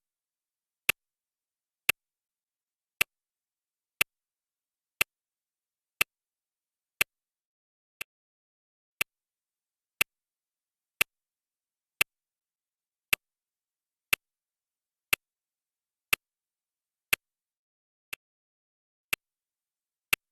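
Clock ticking sound effect: one sharp tick every second with dead silence between, a couple of the ticks fainter than the rest.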